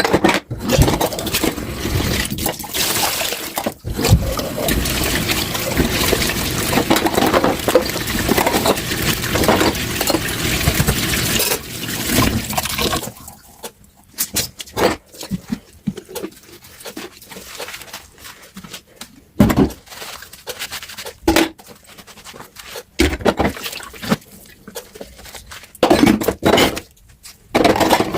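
Water running from a kitchen tap into a sink as dishes are washed. About halfway through the water stops, and dishes clink and knock against each other and the sink.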